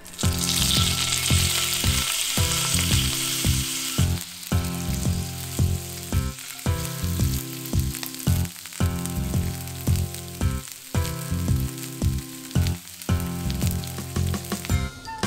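Pork belly sizzling in hot oil in a frying pan. The sizzle is loudest for the first four seconds or so after the meat goes in, then drops to a quieter sizzle. Background music plays underneath.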